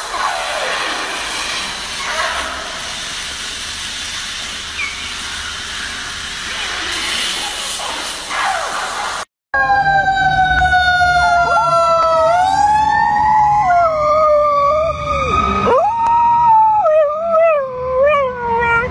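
A steady hiss of air blasting dust off a shoe. Then, after a brief silence, a siren wails with slowly rising and falling pitch while a dog howls along with it, its wavering howls loudest near the end.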